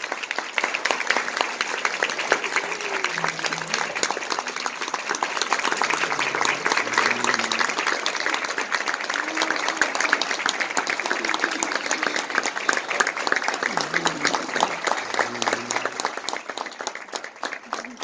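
A roomful of people applauding steadily, with a few voices heard among the claps.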